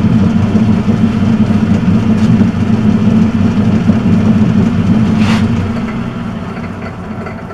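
Turnell & Odell metal lathe running with its gearing humming steadily, then switched off about five seconds in and running down, the sound fading away gradually.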